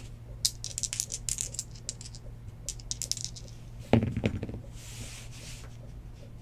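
A pair of dice rattling and clicking together in a cupped hand for about three seconds, then thrown onto a desk mat just before four seconds in, landing with one sharp knock and a short tumble of clicks.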